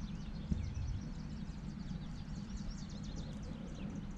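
Small birds chirping and calling, many short quick calls, over a steady low rumble such as wind on the microphone.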